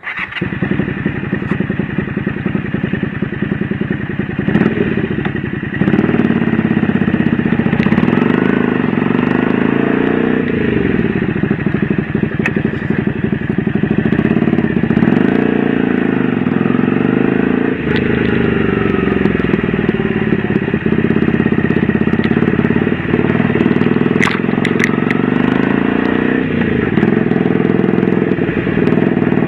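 Honda V-Twin Magna 250's V-twin engine running, its pitch rising and falling several times as it speeds up and slows down.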